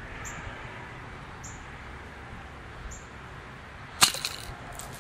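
A spring-loaded rat trap rigged as an airsoft claymore snaps shut with one sharp crack about four seconds in, flinging its load of BBs, followed by a short scatter of small clicks. A short high chirp repeats about once a second.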